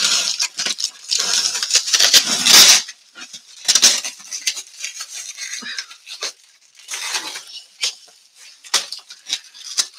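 A taped cardboard box being handled and scraped as someone tries to get it open: a series of rustling scrapes and knocks, the longest and loudest about two seconds in, then shorter ones.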